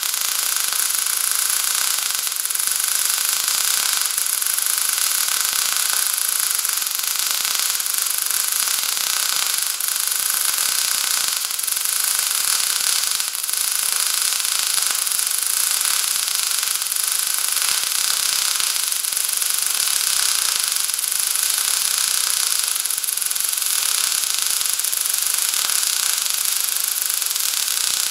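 MIG welding arc on a vertical-up weld with .035 wire, burning as one continuous bead: a steady hiss and crackle that runs without a break.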